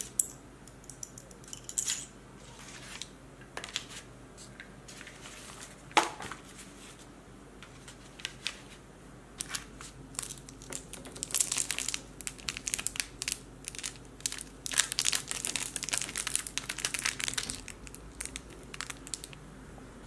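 Crumpled paper crinkling under a hand, with small clicks and taps of metal jewellery findings handled in a plastic tray; one sharp click stands out about six seconds in, and the crinkling is densest in the second half.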